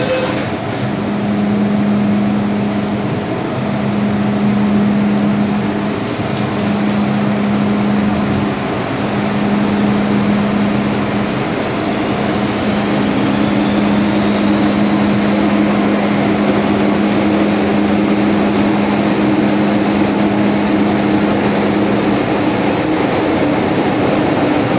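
MTR M-Train metro car running through a tunnel, heard from on board: a steady rush of wheel and tunnel noise with a motor hum that drops out and returns several times, and a thin high whine slowly rising in pitch through the second half.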